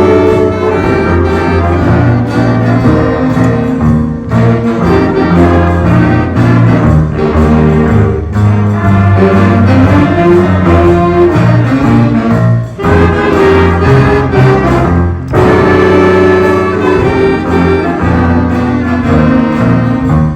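A middle school band playing a holiday piece, with brass to the fore in sustained chords and brief breaks between phrases.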